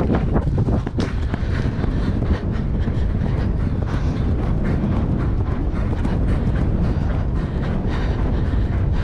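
Horse galloping on grass, its hoofbeats coming through a loud, steady rumble of wind on the microphone.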